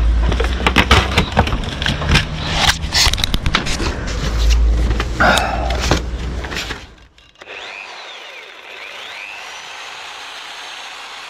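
Handling noise from a sabre saw and its power cable being hauled up, with irregular clattering knocks and scraping over a low rumble. About seven seconds in it drops away to a steady faint hiss.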